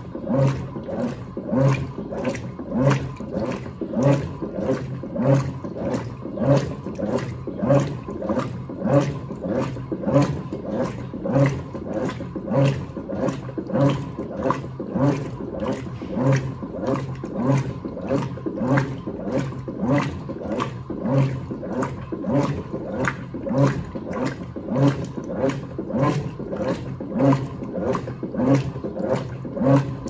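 Electrolux Turbo AquaJet LTA15 direct-drive washing machine agitating a full load of sheets and towels in water. It goes in regular strokes about once a second, each with a short rising motor whine and churning water.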